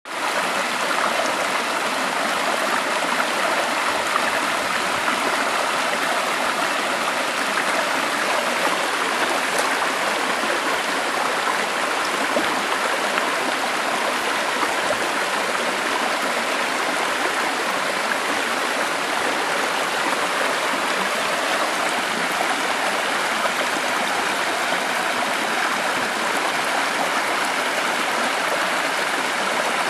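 Shallow stream running steadily over its bed: a continuous, even rush of flowing water with no breaks.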